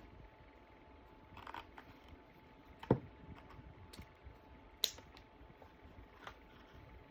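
Scissors and ribbon handled while a small bow is cut: a few scattered light clicks and taps, a dull knock about three seconds in, and a sharp click near five seconds.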